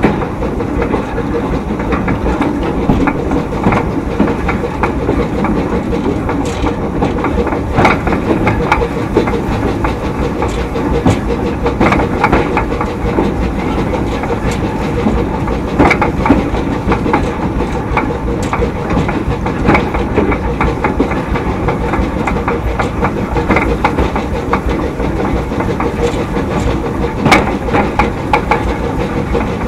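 A 2 ft narrow gauge heritage train running along the line: a steady rumble of wheels on rail, broken by irregular clicks and knocks as the wheels pass over rail joints.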